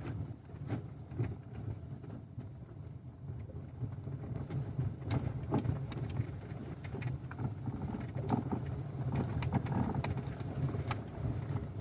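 Steady road and running noise of a Lada XRAY Cross heard from inside the cabin while driving, with irregular sharp knocks from the steering, which the owner takes for a knocking steering rack.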